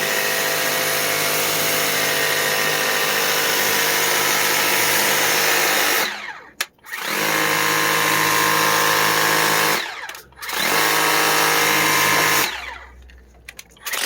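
Kobalt 40-volt battery handheld power cleaner (600 PSI electric pressure washer) running and spraying water, a steady motor-pump whine over spray hiss, whisper quiet. It stops and restarts three times: briefly about six and ten seconds in, and for longer from about twelve and a half seconds in.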